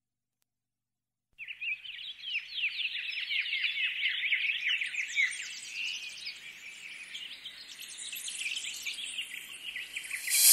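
A flock of small birds chirping rapidly and continuously, many short falling chirps overlapping. It starts abruptly about a second and a half in.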